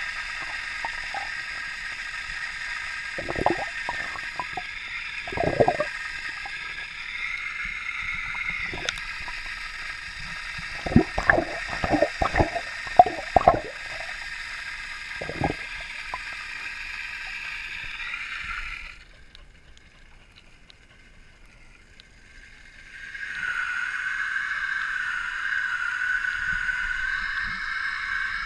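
Swimming pool heard through an underwater camera: a steady muffled whine and hiss with bursts of splashing and bubbling as a dog dives and paddles nearby. The sound drops away for a few seconds about two-thirds through, then the steady whine returns.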